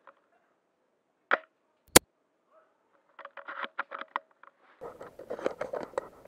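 Sharp clicks of airsoft gunfire: a single shot, a louder crack about two seconds in, then a quick run of shots. Near the end, rustling movement rises under more clicks.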